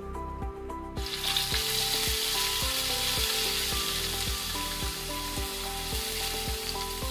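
Onion paste sizzling as it hits hot oil with whole spices in a frying pan, the sizzle starting about a second in and going on steadily while it is stirred with a spatula. Background music with a steady beat plays underneath.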